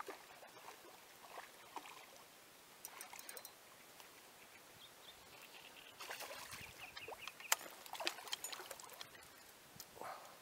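A hooked asp splashing and thrashing at the water's surface as it is played in to the bank on a spinning rod, in irregular bursts of splashing that are busiest past the middle.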